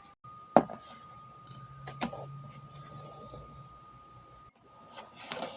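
Handling noises from a product box being opened: a sharp knock about half a second in, another about two seconds in, with rustling in between and a brief clatter near the end.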